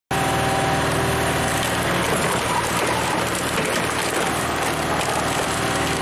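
The engine of a trailer-mounted hydraulic log splitter running steadily as it drives the ram, forcing a large log into the four-way wedge.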